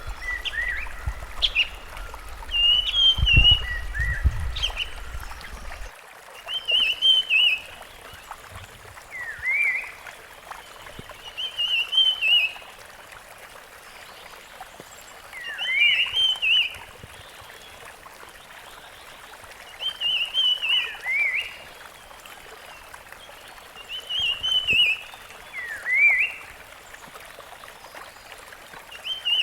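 Rusty-fronted Barwing singing: a short phrase of quick whistled notes with rising and falling sweeps, repeated about every four seconds. A steady hiss sits underneath, and a low rumble runs through the first six seconds.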